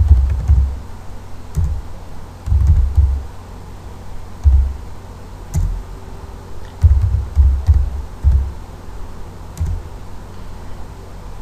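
Computer keyboard being typed on in short, irregular bursts, each keystroke coming through as a dull low thump.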